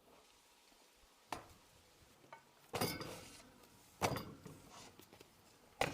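Four separate faint clinks and knocks of kitchenware being handled and set down.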